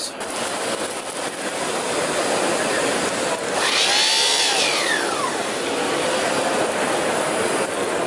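Lindhaus Aria canister vacuum running steadily with its motorized power head on a hard tile floor. About four seconds in, a whistling tone briefly rises and then falls away.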